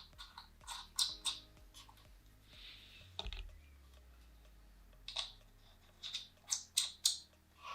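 Scattered light plastic clicks and rattles as propellers are screwed onto a DJI Mavic Air 2 drone's motors by hand, several clicks in quick succession near the end.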